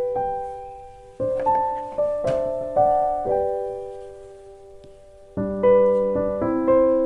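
Background piano music: single notes and chords struck and left to die away, with a lull of about a second before a new run of chords.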